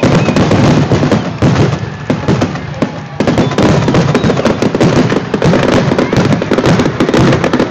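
Fireworks going off in a dense, continuous barrage of rapid crackling pops and bangs, easing briefly about two to three seconds in before picking up sharply again.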